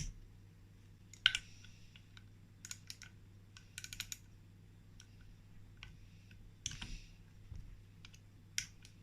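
Scattered metallic clicks and clinks of hand tools and small parts, a second or so apart with a few quick clusters, as the clutch is being dismantled on a two-stroke motorbike engine. A faint steady low hum runs underneath.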